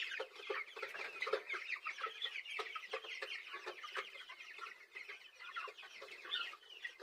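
A flock of about a hundred three-week-old broiler chickens peeping and cheeping together: a dense, continuous chatter of many short, high calls.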